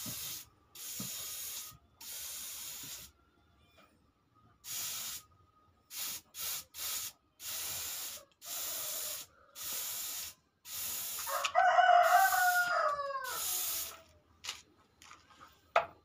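Gravity-feed paint spray gun hissing in about a dozen short bursts as the trigger is pulled and released. A rooster crows once, loudly, about eleven seconds in, over the spraying.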